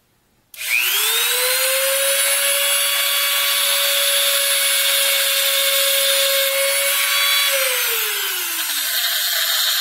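A Wen rotary tool spins up with a rising whine and runs at a steady high pitch while a flat stone is held against its spinning ceramic grinding stone, adding a harsh grinding hiss. It is dressing the stone flat again after it was burnished black. Near the end the whine falls in pitch, and the sound cuts off.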